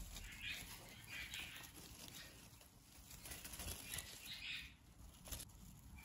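Faint rustling of young budgerigars moving about among the flowers of a bouquet, petals and feathers brushing, in a few soft spells.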